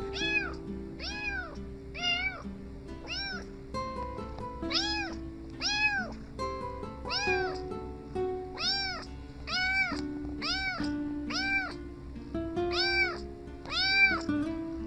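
A cat meowing over and over, about fifteen meows each rising and falling in pitch, spaced roughly half a second to a second and a half apart, with background music that has a steady beat.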